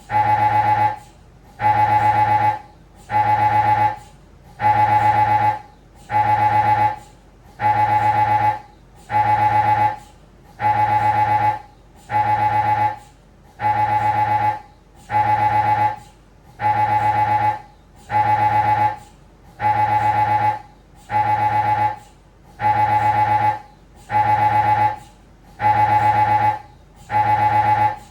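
Siemens Magnetom Avanto Fit 1.5-tesla MRI scanner running a spine scan sequence: its gradient coils sound a loud, pitched, buzzing tone in one-second pulses, repeating evenly about every second and a half, and stopping at the very end.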